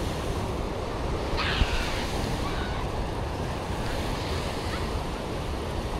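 Ocean surf washing up the beach in a steady rush, with wind buffeting the microphone. A single short knock about one and a half seconds in.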